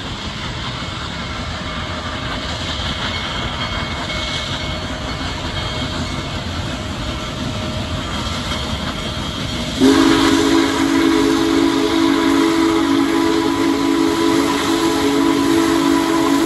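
Union Pacific Big Boy 4014 steam locomotive approaching, a steady noise that grows slowly louder; about ten seconds in its steam whistle starts, a loud chord of several steady tones held to the end.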